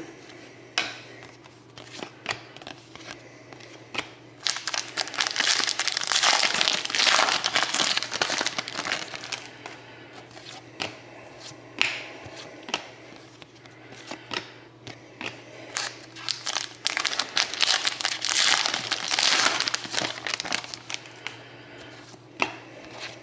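Trading-card pack wrappers being crinkled and torn open, in two long stretches of crackling with sharp clicks from cards being handled between them.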